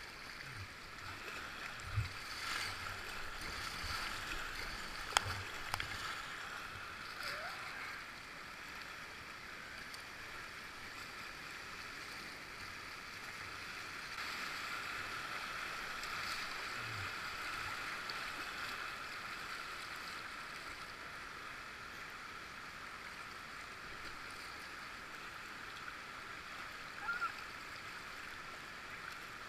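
River water rushing over rapids, a steady hiss, with a few sharp knocks in the first six seconds or so.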